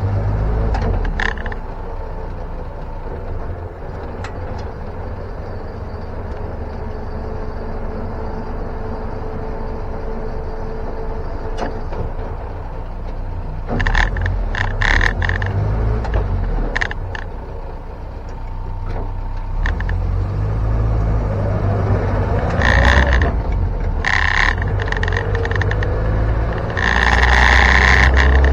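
1961 Land Rover Series II engine running after starting, rising in pitch around two-thirds of the way through as it is revved or pulls away. Sharp rattles and knocks from the body come now and then.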